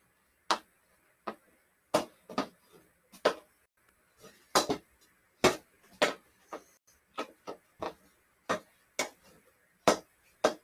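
Hockey stick blade striking an orange stickhandling ball during a backhand pull, reach-and-catch drill: a series of sharp clacks at an uneven pace, about two a second.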